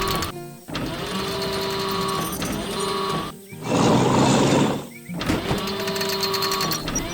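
Background music for a cartoon, built from repeating phrases of held tones with brief breaks between them. A louder, noisier passage comes in about four seconds in.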